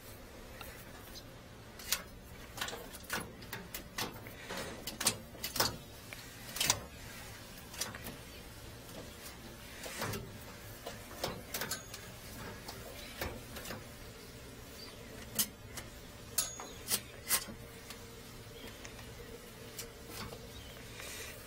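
Irregular clicks and knocks of a drain inspection camera's push cable being fed by hand into a floor drain and tapping against the drain and its case, over a steady low hum.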